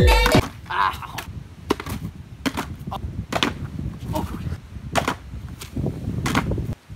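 Skateboard rolling on pavement: a steady low rumble from the wheels with irregular sharp clacks as they hit cracks and bumps.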